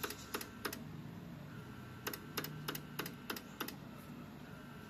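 CD mechanism of a Victor UX-Z11WMD micro component system clicking while it tries to read a disc: a run of sharp, irregularly spaced clicks, a few in the first second and more from about two seconds in, over a faint steady whir.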